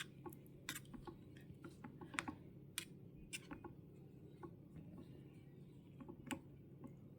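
Light, irregular clicks and taps of small utensils being handled against one another, a dozen or so scattered through the stretch.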